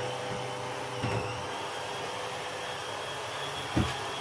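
Shark Steam & Scrub steam mop running steadily, its motor spinning the rotating scrub pads as it is worked over the floor. A short knock sounds near the end.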